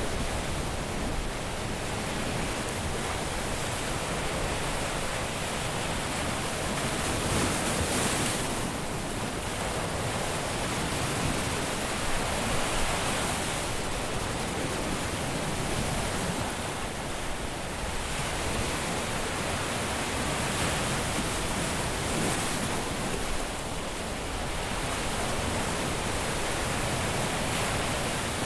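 Caribbean surf breaking on a beach: a continuous wash of waves, with a new wave breaking and swelling every few seconds.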